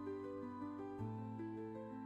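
Gentle background music: a slow sequence of soft plucked or keyboard notes over a held bass note that changes about a second in.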